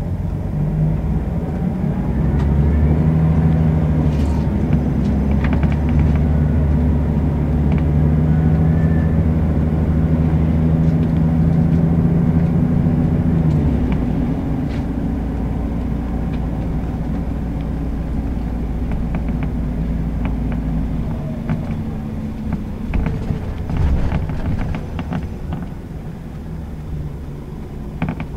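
Scania L94UB city bus with ZF automatic gearbox driving, heard from inside the bus: the engine pulls with a steady note under load, then the note drops away about halfway through and the bus rolls on with a lower rumble. A few rattles and knocks come near the end.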